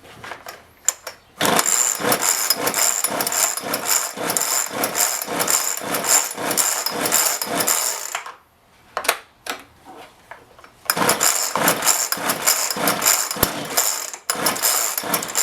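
Homelite 3514C chainsaw's small two-stroke engine firing on choke and running roughly, stumbling in an even rhythm of about three surges a second. It dies about eight seconds in, then catches again twice for a few seconds each. The saw won't run cleanly, a fault the video traces to a bad spark plug.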